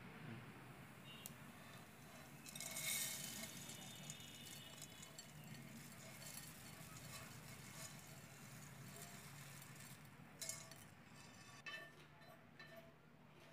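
Faint rattle of puffed rice mixed with egg being tipped into a ceramic plate, with light clinks against the plate, loudest about three seconds in; after that only a few faint clicks over quiet room tone.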